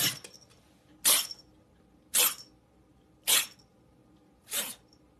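Grey tabby kitten sneezing over and over: five short, sharp sneezes a little over a second apart.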